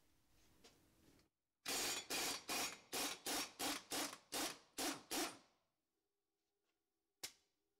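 Ingersoll Rand air impact wrench hammering on a 12mm hex socket in about ten short trigger bursts, roughly three a second, to break loose the impeller of a Sea-Doo jet pump. A single sharp click near the end.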